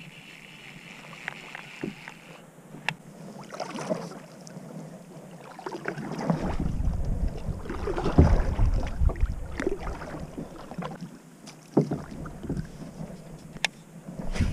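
Kayak paddle strokes dipping and splashing in the water, irregular and loudest through the middle, with a few sharp clicks. Wind rumbles on the microphone from about six seconds in.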